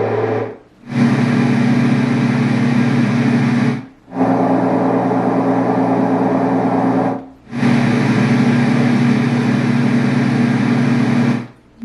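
LectroFan white noise machine playing its electronic fan sounds loudly: a steady rush of air with a low hum. It cuts out briefly three times, about a second, four seconds and seven seconds in, and each time comes back as a slightly different fan sound as it steps to the next setting.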